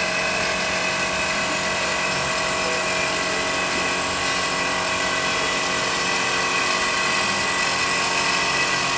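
A standing live-steam miniature locomotive hissing steadily, with a constant high whine over the hiss.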